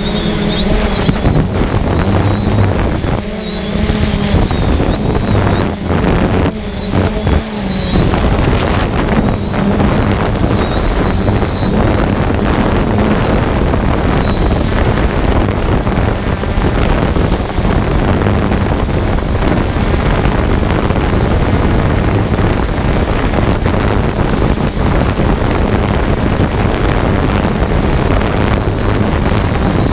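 Quadcopter drone's motors and propellers heard from its own onboard camera: a steady high whine over rushing wind on the microphone, rougher and uneven for the first few seconds.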